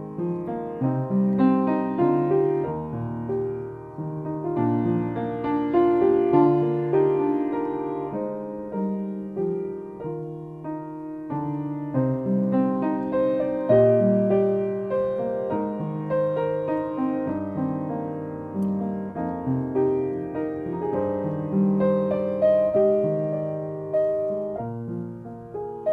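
Piano music: a melody over chords, each note struck and then fading.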